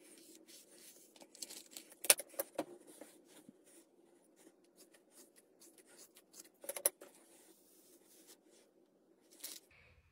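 Scissors snipping through straight hair: a few sharp cuts, the loudest about 2 seconds in and again near 7 seconds, with soft rustling and handling of hair between them over a faint steady hum.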